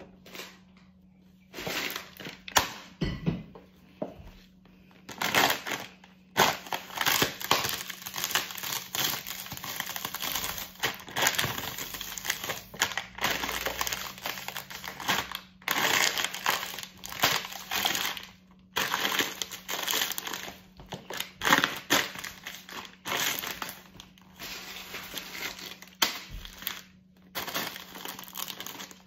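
Crisps crunching inside their packets under high-heeled ankle boots, with the plastic packaging crinkling, in a long run of repeated stamps and grinds that starts about two seconds in.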